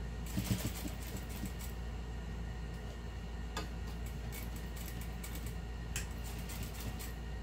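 Juki industrial sewing machine topstitching slowly through fabric: scattered ticks and clicks, a cluster in the first second and single ones later, over a steady low hum.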